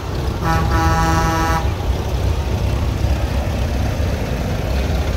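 A vehicle horn sounds once for about a second, a steady single-pitched blast. Underneath it, engines rumble low and steady.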